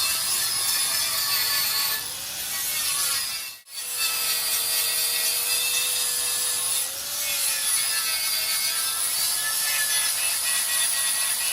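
Angle grinder grinding down a weld on a wheel rim: a steady, harsh grinding hiss over a motor whine that sags and wavers as the disc is pressed into the metal, with a brief break about three and a half seconds in.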